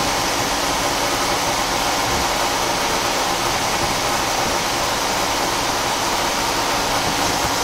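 Chiron FZ 40 vertical machining centre running: a steady hiss with a faint constant hum that doesn't change.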